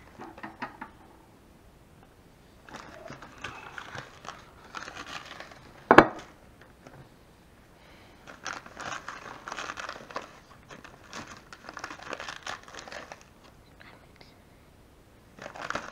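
Crinkly plastic powder packet crackling in several bursts as it is handled and scooped from, with one sharp tap about six seconds in.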